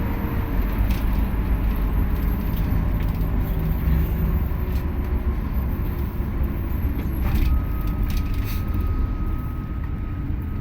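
Tour bus on the move, its engine and road rumble heard from inside the cabin, with a few light rattles.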